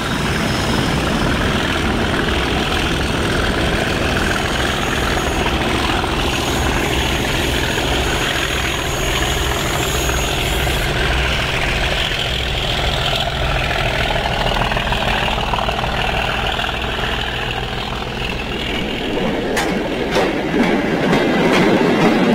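RA class diesel locomotive hauling a goods train past, its engine giving a steady low rumble. Near the end the wagons' wheels click louder over the rail joints.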